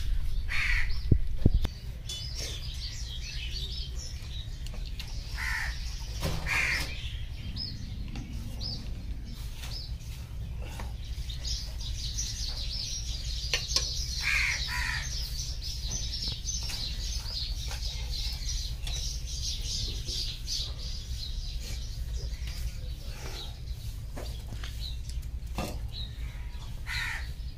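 Crows cawing now and then, single calls spread through, with smaller birds chirping in the middle stretch over a steady low hum. A few knocks come in the first two seconds.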